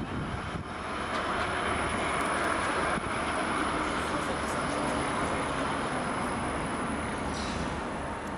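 Škoda 15T low-floor articulated tram passing close by on street track: a steady rolling hiss of wheels on rail that swells about a second in and eases near the end as it moves away.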